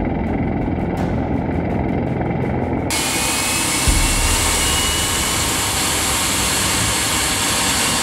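Bell V-280 Valor tiltrotor's proprotors and turbine engines running. For the first three seconds there is a low rumble with a fast, even rotor beat. It then switches suddenly to a wider rushing noise with a faint rising whine as the aircraft flies with its rotors tilted.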